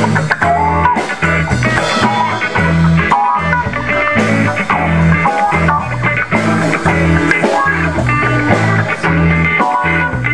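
Live band playing an instrumental funk groove: two electric guitars, one a hollow-body and one a Telecaster-style, playing short picked and strummed riffs over a repeating bass line and drums.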